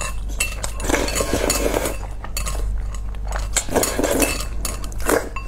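Chopsticks clicking and scraping against a bowl of spicy noodles, with short slurps of noodles about a second in and again near the end.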